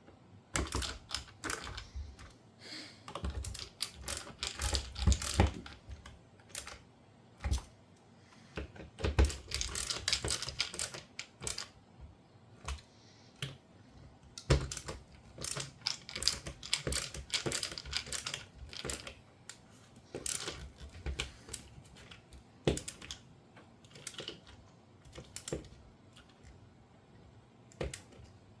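Hand work on a dishwasher door's dispenser parts: irregular clicks, taps and light knocks of a hand tool and plastic parts, coming in quick clusters with short pauses.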